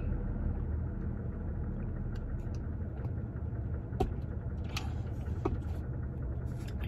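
Steady low background rumble, with a few faint short clicks of chewing and mouth sounds in the second half.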